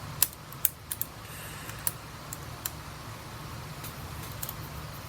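Scattered light clicks and taps of a small T4 Torx screwdriver and screw being started by hand in a MacBook Air's chassis, over a steady low hum.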